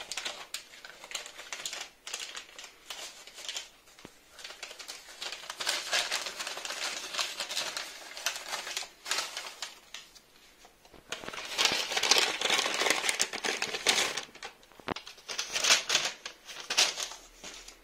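Kraft paper bag rustling and crinkling as it is handled and its contents pulled out. It comes in irregular spells, loudest about two-thirds of the way in and again near the end.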